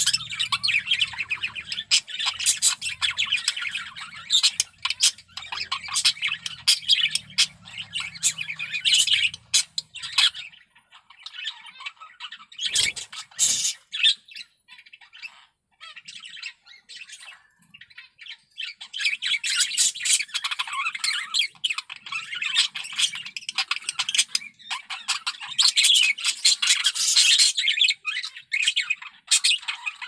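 Male budgerigar warbling in breeding condition: a fast, rambling chatter of squawks, clicks and chirps. It thins to a few scattered calls about a third of the way in, then picks up again, dense, after a few seconds.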